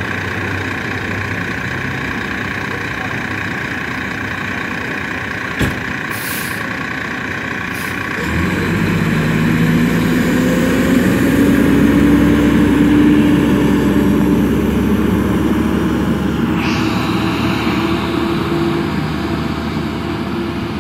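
Fire truck's diesel engine idling. About six seconds in there is a knock, then a short air hiss. About eight seconds in the engine revs up as the truck pulls away, its pitch rising slowly, with another brief hiss later on.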